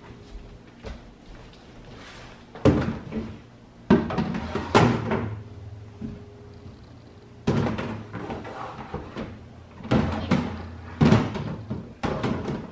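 Plastic trash bins being set down into a wire pull-out frame in a kitchen base cabinet: a series of sharp knocks and clunks a second or so apart, with the cabinet pull-out rattling as the bins go in.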